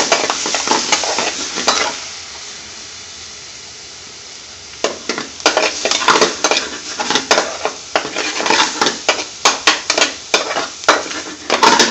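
Metal spoon scraping and knocking against a frying pan as saag paneer with cream is stirred, over a steady sizzle from the pan. The stirring stops for a few seconds about two seconds in, leaving only the sizzle, then resumes with quick repeated scrapes.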